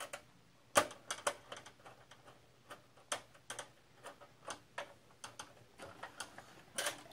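A screwdriver driving a screw to fasten a graphics card's bracket to a PC case: a string of small irregular clicks and taps, the sharpest about a second in.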